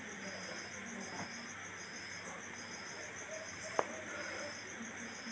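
Crickets chirping steadily in the background: a fast pulsing trill over a slower, evenly repeating chirp. Faint handling of paper leaflets, with one sharp click about four seconds in.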